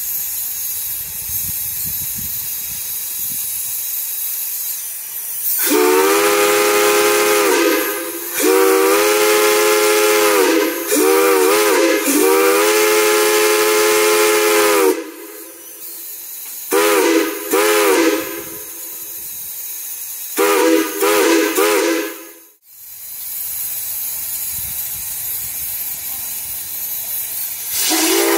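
Steam hissing, then a multi-chime steam whistle sounding a chord of several tones: long blasts with a wavering stretch in the middle, followed by four short toots. After a sudden break the steam hiss comes back and the whistle begins sounding again near the end.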